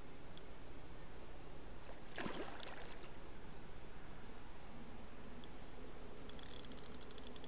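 A hooked carp splashes once at the surface about two seconds in. Near the end a fishing reel starts ticking rapidly.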